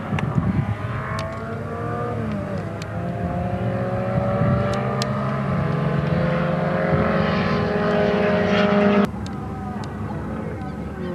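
Several midget race car engines running hard as the cars lap past, their notes climbing and dropping through the gears and overlapping. About nine seconds in the sound cuts suddenly to a quieter engine note.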